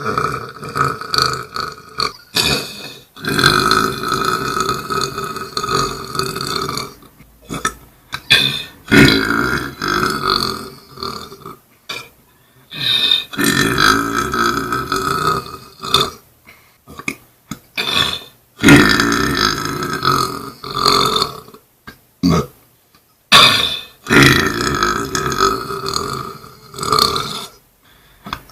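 A man belching loudly: a run of long, drawn-out belches one after another with short breaks between, several of them sliding down in pitch as they go.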